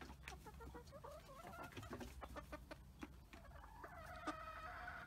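Backyard hens clucking softly, with a longer drawn-out call near the end and scattered light clicks.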